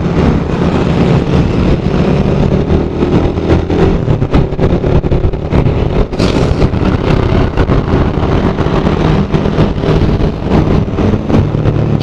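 Suzuki Raider R150's single-cylinder four-stroke engine running steadily at road speed, heard from a helmet chin-mount camera, under a constant rush of wind and road noise. There is a brief hiss about six seconds in.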